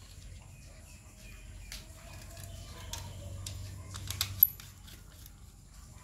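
Small clicks and scrapes of electrical wires and a screwdriver being handled at a switchboard's screw terminals, with one sharper click about four and a half seconds in.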